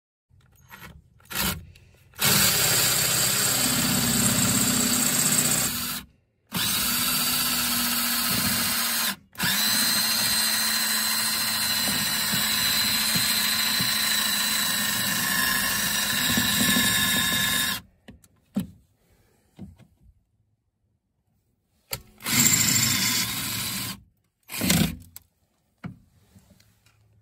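Ryobi cordless drill/driver running at a car speaker's mounting screws. It runs in long stretches, the longest about eight seconds, with brief stops between them, then in a few short bursts near the end.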